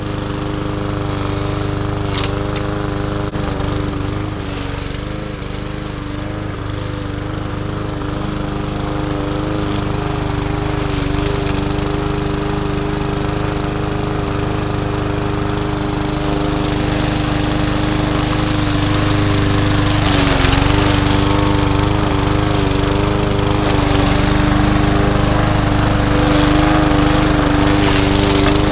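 Gas-powered walk-behind lawn mower engine running steadily under load while cutting tall grass and weeds; its note dips briefly about two-thirds of the way through.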